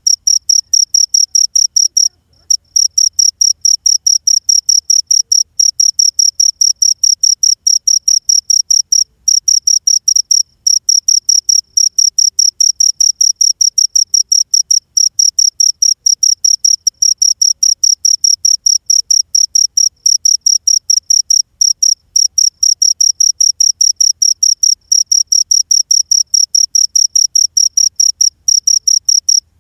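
Cricket (jhingur) chirping: a loud, high-pitched trill in rapid, evenly spaced pulses, several a second, with a few brief pauses.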